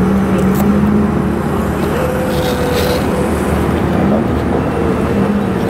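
Steady engine drone with a hum that steps up in pitch about two seconds in and drops back about a second later.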